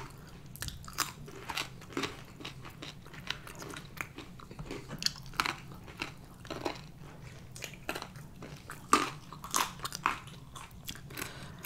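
Biting and chewing a raw carrot stick: a run of sharp, irregular crunches.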